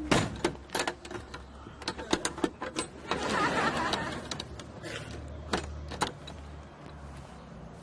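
Metallic clicks, knocks and rattles of a key and the sliding bolt latch being worked on a classic Mini's door, with a louder, denser clatter about three seconds in.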